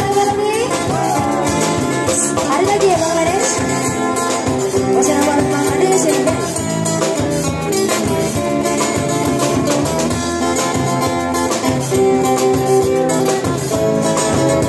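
Live street band playing a joget song: a singer over amplified acoustic guitar and a drum kit keeping a steady beat.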